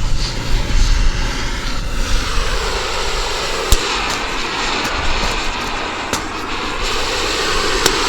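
Oxy-fuel cutting torch hissing steadily as it cuts through the steel of a skid steer wood splitter, with a few sharp clicks partway through.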